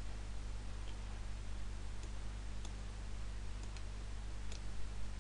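A handful of sharp computer-mouse clicks, about a second apart, over a steady low electrical hum and hiss from the recording microphone.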